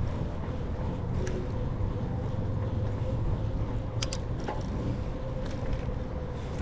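Steady wind and road rumble picked up by a camera riding along on a bicycle, with a couple of sharp clicks about four seconds in.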